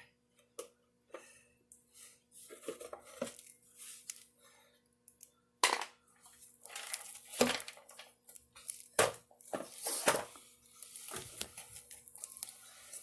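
Metal parts clinking and knocking as a mini bike's torque converter cover is pulled off and its parts are handled: scattered sharp clicks with some scraping between them, the loudest knocks about six, seven and a half, nine and ten seconds in.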